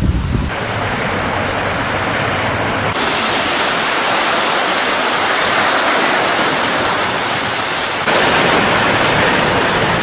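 Small waves washing in on a sandy beach: a steady, loud rush of surf that changes abruptly about half a second in, again about three seconds in and once more about eight seconds in.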